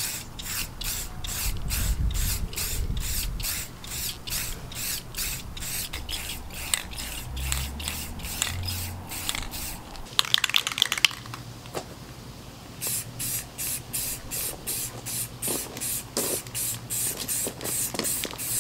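Aerosol spray-paint can spraying in quick short pulses, about two to three hisses a second. About halfway through there is a brief rattle of sharp clicks and a short pause before the spraying starts again.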